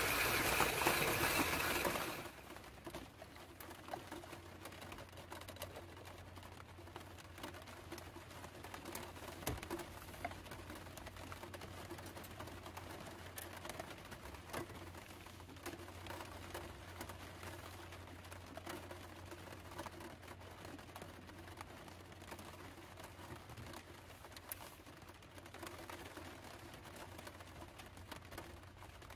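Hand-cranked coffee grinder grinding beans, stopping about two seconds in. After that, faint scattered ticks and taps over a steady low hum.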